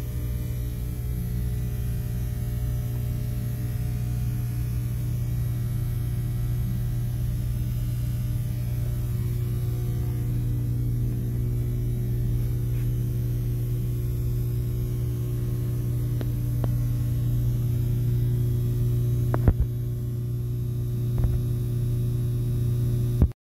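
Ship engine-room machinery running with a steady, loud hum. A few sharp knocks come in the last several seconds, and then the sound cuts off suddenly.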